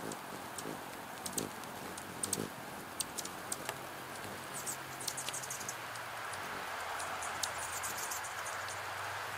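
Steady rain, with drops ticking sharply on the feeder's clear plastic rain shield. Hummingbirds give quick runs of high chips about halfway through and again near the end, and a low wing hum sounds briefly as one hovers in to the feeder.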